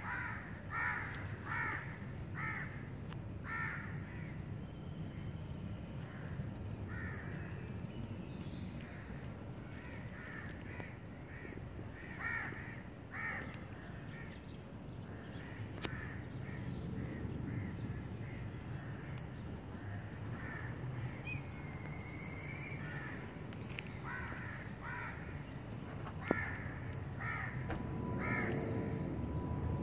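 Crows cawing: runs of short, repeated caws, about two a second at the start and recurring through the rest, over a low steady background rumble.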